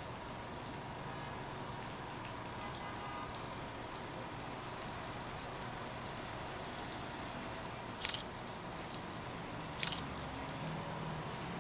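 MTA city bus approaching and turning in, its engine hum building near the end, over a steady background hiss. Two sharp clicks, about 8 and 10 seconds in, are the loudest sounds.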